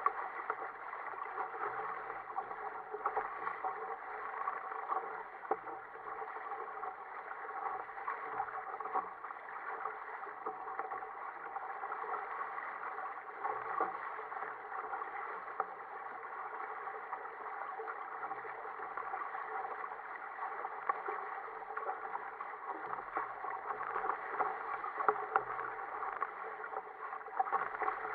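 Sea water rushing and splashing along the hull of a sail-rigged Ocean Kayak Prowler 13 with outriggers as it moves through choppy water under sail. It is a steady, muffled rush with small knocks scattered through it.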